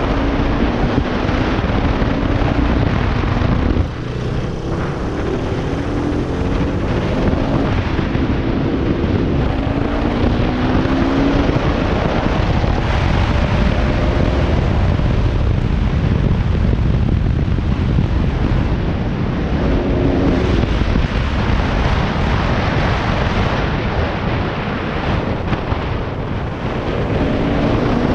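Bajaj Pulsar RS200 BS3's single-cylinder engine with its original exhaust, ridden and pulling through the gears: its note rises in pitch several times and drops back between shifts. Wind rushes over the microphone throughout.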